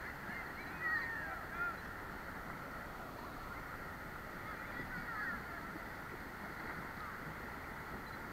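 Steady rush of river water, with a few short, high, gliding calls over it about a second in and again around five seconds in.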